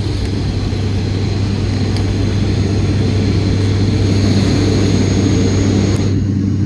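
Steady drone of an airliner's engines and airflow heard inside the passenger cabin during the climb after takeoff; the higher hiss drops off about six seconds in.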